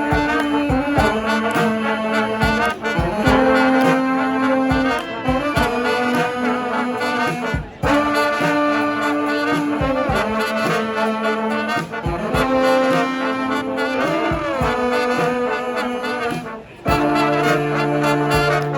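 Brass band playing a song live: held and moving horn lines over a steady beat, with a brief break about eight seconds in and a short dip shortly before the end, after which a low bass note comes in.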